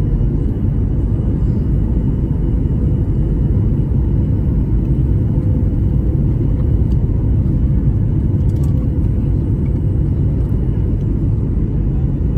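Steady low rumble of airliner cabin noise on the landing approach: engine and airflow noise heard from inside the cabin, with a faint steady hum over it.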